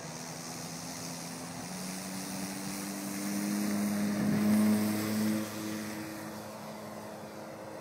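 Electric motor of a large RC model Tucano turning a Thrustmaster 20x8 propeller at full power on its takeoff run. It is a steady propeller drone that grows louder as the plane passes close, loudest about four and a half seconds in, then fades as it climbs away.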